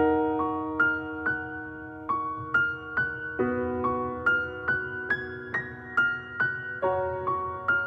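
Background music: a slow, gentle piano melody, notes struck about twice a second over held chords, the intro of a song.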